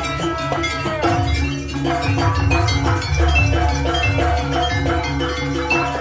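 Jaranan gamelan music: metal-keyed percussion plays fast repeated notes over drums and a deep, booming beat, with a bending melodic line in the first second.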